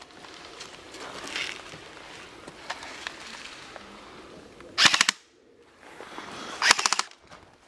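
Airsoft rifle firing two short full-auto bursts of rapid clicking shots, the first about five seconds in and the second near the end.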